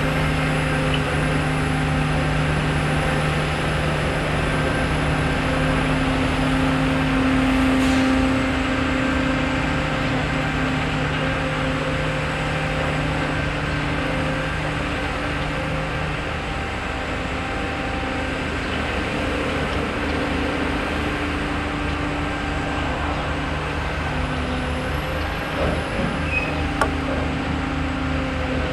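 Heavy diesel engines of a rail crane and track machinery running steadily, a low drone whose note shifts about halfway through, with a few faint knocks near the end.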